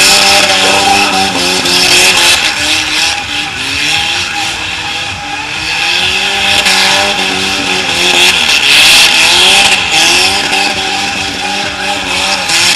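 Car doing a burnout in donuts: the engine revs up and down at high rpm while the spinning tyres squeal and hiss.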